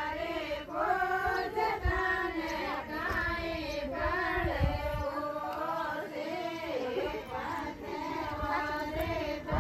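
Group of women singing a Rajasthani ritual song together, several high voices overlapping and holding long, bending notes, with a few low bumps on the microphone.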